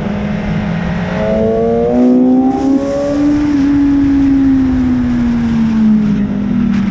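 BMW S1000RR's inline-four engine running hard on the circuit over heavy wind rush: the engine note climbs through the first half, then falls slowly and steadily through the rest.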